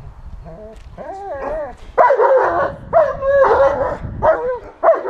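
Dog barking in a run of repeated barks, a few quieter ones first and then loud barks from about two seconds in: a guard dog barking at the helper on its handler's cue during protection work.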